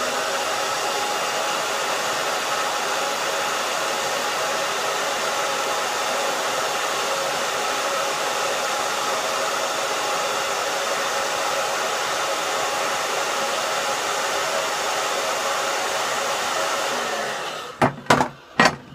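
Handheld hair dryer running steadily, blowing hot air onto the end of polyethylene hoop tubing to soften it for the connector, with a faint steady motor whine. It winds down and stops near the end, followed by a few sharp clicks.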